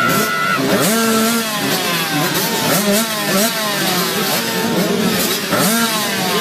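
A field of motocross bikes revving at the start gate, many engines overlapping, each one's pitch repeatedly rising sharply and sliding back down.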